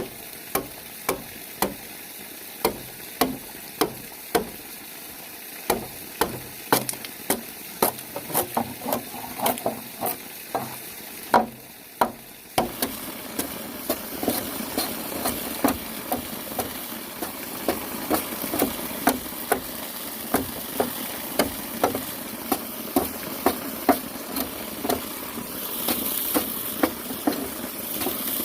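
Sharp knocks and taps repeating irregularly, one or two a second at first and more densely after a change about twelve seconds in, over a steady hiss.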